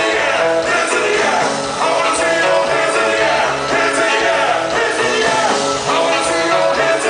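Loud live music with singing, heard from inside a concert crowd, with sharp cymbal-like hits recurring through it.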